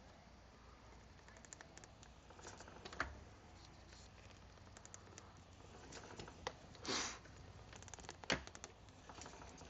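Light, irregular clicking and tapping of hand work on a new motorcycle drive chain while it is lubed, with a short hiss about seven seconds in and two sharp knocks, near three seconds and again after eight seconds.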